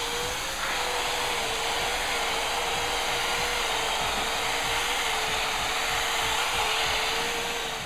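Electric drill spinning a 3000-grit sanding disc against a plastic headlight lens: a steady motor whine over the hiss of sanding, winding down near the end.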